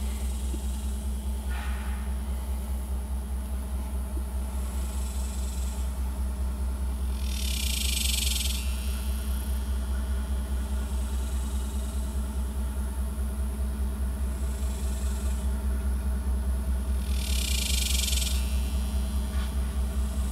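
Steady low rumble of an idling engine, pulsing evenly a few times a second over a steady hum. A high hiss rises for about a second twice, near the middle and near the end.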